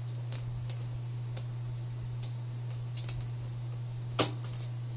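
Scattered light clicks and taps, with one sharper click about four seconds in, over a steady low hum.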